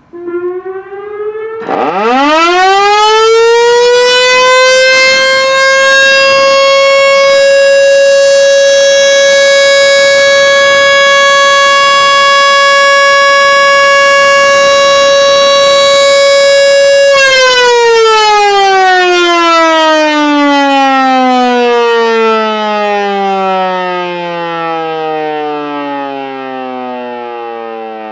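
Outdoor warning siren sounding a test: it rises in pitch over the first couple of seconds, holds one steady tone for about fifteen seconds, then slowly falls in pitch as it winds down.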